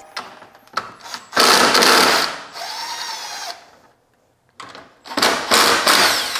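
Power tool backing out the 10 mm bolts that hold the stock air intake. It runs in two bursts, about a second and a half in and again near five seconds, with a short whine after the first and a brief silent gap between them.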